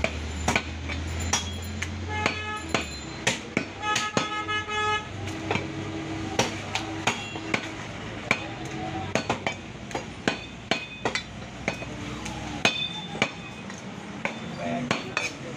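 A butcher's knife chopping beef on a wooden tree-stump block: repeated sharp chops at an uneven pace.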